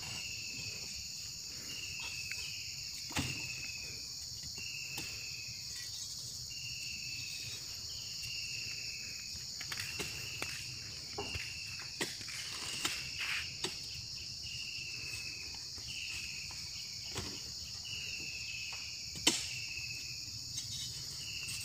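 Steady high drone of insects, with a short falling chirp repeated about once a second. Scattered dull knocks are heard as oil palm fruit bunches are thrown into a truck bed; the sharpest knock comes near the end.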